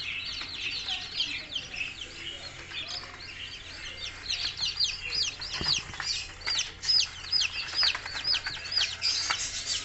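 A brood of newly hatched bantam chicks peeping: many quick, high, down-slurred peeps overlapping, growing busier and louder about halfway through.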